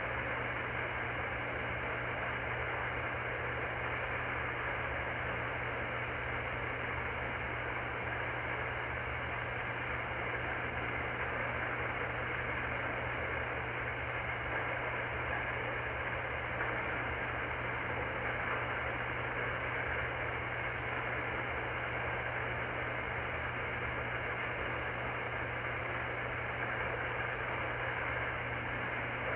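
Steady static hiss from an Icom R30 receiver in lower-sideband mode on 27.385 MHz, with a low steady hum underneath. It is the band noise of an idle CB sideband channel with no station transmitting.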